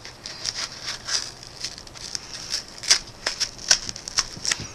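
A blade cutting through a cardboard mailer: a run of short, irregular crackles and snips, a few louder ones around three seconds in.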